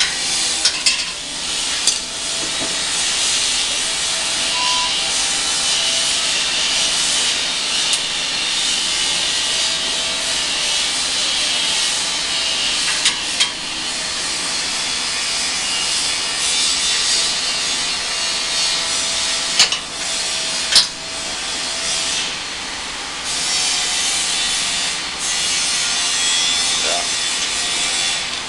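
Continuous rasping and scraping of a thin metal pry bar being forced and worked in the gap between a door and its frame, in a break-in attempt. A few sharp clicks and knocks of metal on the door cut through it now and then.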